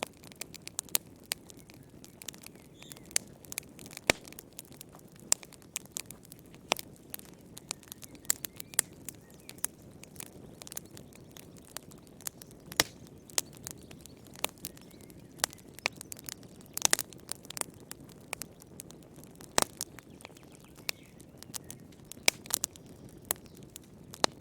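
Wood fire in a fireplace crackling, with sharp irregular pops and snaps over a soft low rumble of burning logs.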